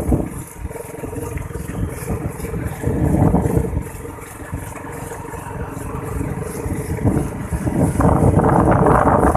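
Engine of a moving two-wheeler running as it rides along, with a rough rumble that swells about three seconds in and again near the end.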